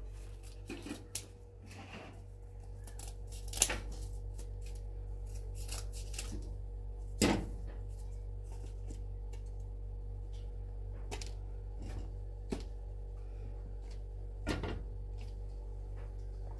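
Kitchen handling sounds: scattered light clicks and knocks, with three louder knocks spread through, over a steady low hum.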